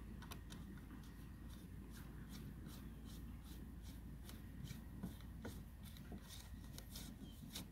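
Faint, irregular small clicks and rubbing of a 3 mm driver turning the clamp screws of a two-part collar on a metal trolling-motor shaft. The screws are being snugged down evenly, a little on each side at a time.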